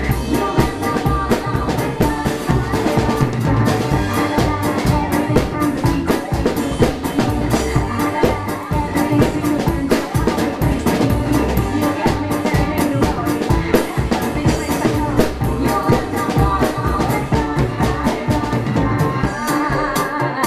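Drum kit played live in a swing style along with a recorded electro-swing track: rapid stick hits on snare and cymbals over the song's music.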